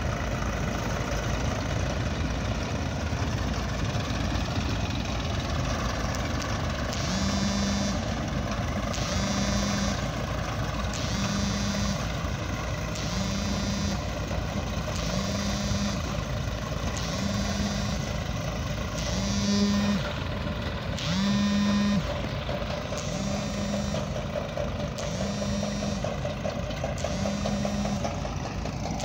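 Diesel tractor engine running steadily under load while a soil-loading machine feeds earth into its trolley. From about seven seconds in, a reversing alarm beeps regularly, about once every two seconds.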